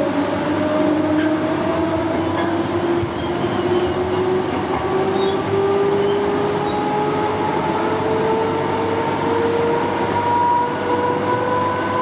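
Electric suburban train's traction motors whining from inside the carriage, the whine rising slowly and steadily in pitch as the train gathers speed. Underneath is the steady rumble of the wheels on the rails.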